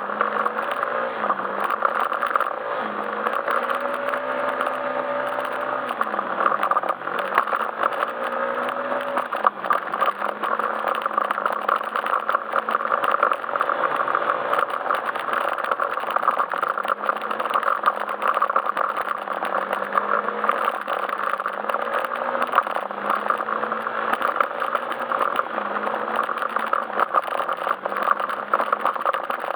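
Yamaha Majesty S scooter's single-cylinder four-stroke engine running under way, its pitch rising and falling every few seconds as the throttle changes, over constant rattling and road noise.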